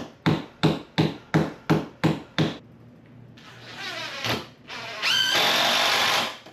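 A hammer strikes about eight times, roughly three blows a second, then a power drill whirs, building up and running steady and louder for about a second near the end.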